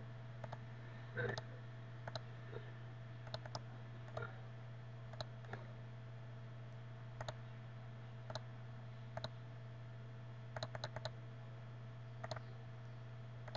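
Computer mouse buttons clicking: scattered single clicks and quick pairs at irregular intervals, over a steady low hum.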